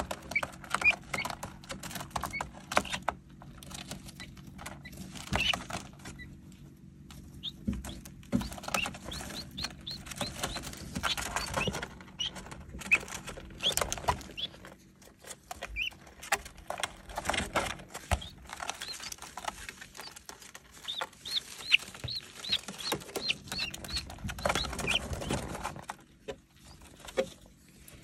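Guinea keets peeping in short, high chirps, with a quick run of peeps about three quarters through, amid the scratching and rustling of their feet on cardboard and pine shavings. A faint steady hum sits underneath.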